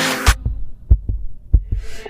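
Background music: the song cuts off about a quarter second in, leaving a few deep, short thumps like a slow heartbeat beat, then a rising swish near the end leading into the next track.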